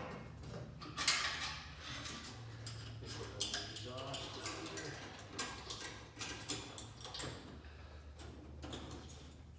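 Scattered metal clinks and knocks as an engine hanging from a shop hoist is lowered and worked into place, over a steady low hum.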